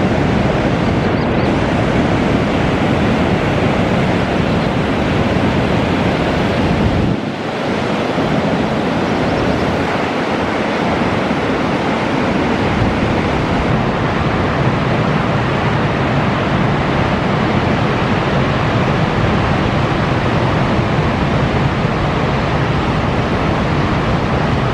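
Heavy ocean surf: large waves breaking in a continuous rush of white water, with wind buffeting the microphone. The sound dips briefly about seven seconds in.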